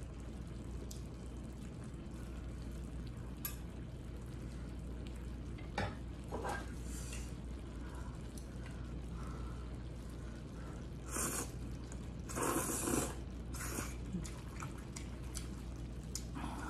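Chopsticks handling glass noodles and beef in a steel pan and on a plate, with soft eating noises, a few faint clicks and brief louder noisy scrapes or slurps about eleven and twelve to thirteen seconds in, over a steady low hum.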